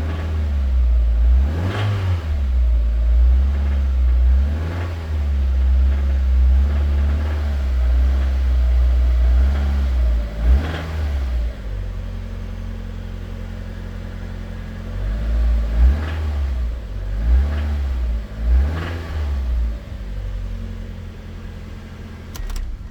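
2000 Mazda Miata's 1.8-litre BP4W four-cylinder engine blipped repeatedly from idle, about every second and a half, settling to a steadier idle about halfway through with a few more blips after. A knock comes in as it revs out of idle: rod knock.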